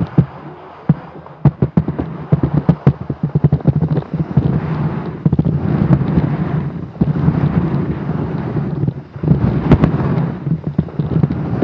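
Salomon skis sliding and scraping over packed snow, with wind buffeting the camera microphone. Rapid sharp crackles and knocks over the first few seconds give way to a steady rushing noise that drops briefly twice.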